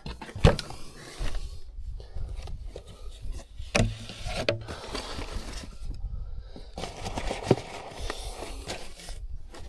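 Rummaging through belongings: things scraped, rustled and shifted about, with a few sharp knocks.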